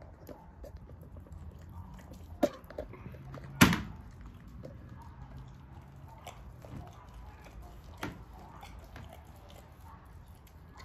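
An American bulldog licking and mouthing a piece of raw food, with small wet clicks and a few sharp knocks: about two and a half seconds in, a louder one a second later, and another about eight seconds in.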